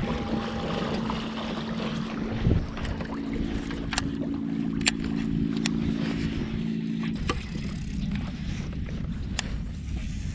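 Pedal-drive fishing kayak under way: water washing along the hull with a steady low hum from the pedal drive that stops about seven seconds in, and a few sharp clicks.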